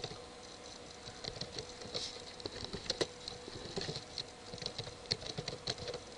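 Computer keyboard being typed on: irregular runs of quick key clicks over a faint steady hum.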